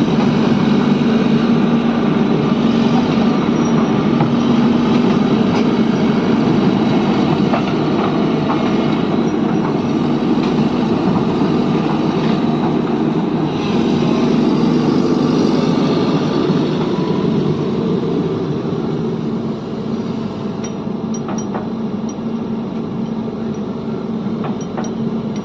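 Heavy diesel machinery running steadily with a constant low hum, easing slightly about three-quarters of the way through.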